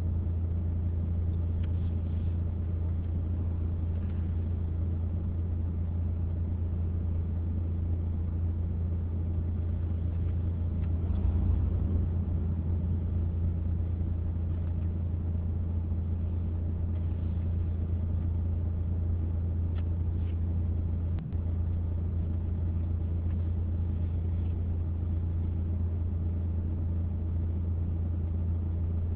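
Steady low drone of a car heard from inside the cabin. It swells louder briefly about eleven seconds in, and there is a short click a little past twenty seconds.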